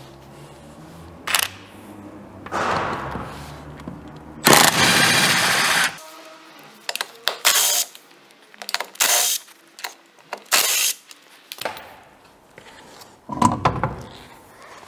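Cordless impact wrench undoing a car's wheel nuts: bursts of rapid hammering and whirring, the longest and loudest lasting about a second and a half, followed by a string of short bursts as the nuts spin off.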